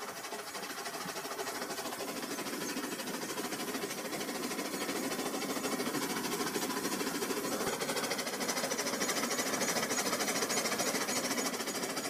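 Toy electric train's motor and gearing whirring with a fine, rapid rattle as it runs steadily along plastic track.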